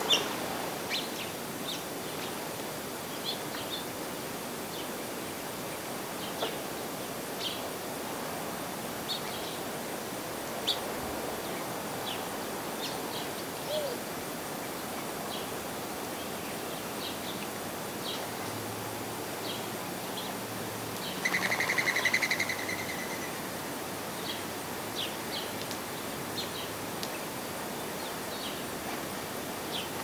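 Sparrows and finches chirping around backyard seed feeders: short high chirps scattered throughout over a steady outdoor hiss. There is a sudden flutter of wings as birds flush right at the start, and a louder buzzy trill lasts about two seconds, about two-thirds of the way in.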